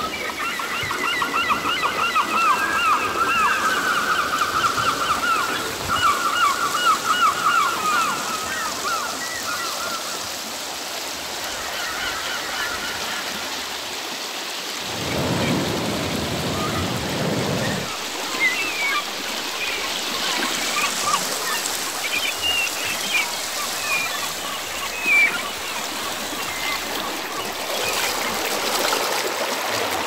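Steady rushing background noise with animal calls over it. A fast chirping trill sounds for the first ten seconds or so. A lower call lasts about three seconds midway. Scattered short chirps follow.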